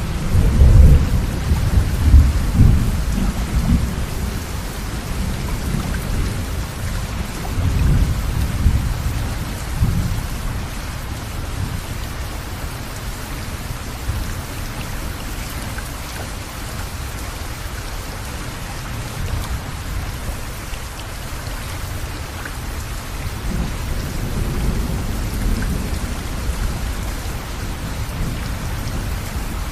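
Steady rain with rolling thunder. The low rumbles are loudest in the first few seconds, swell again around eight to ten seconds in, and come back more softly near the end.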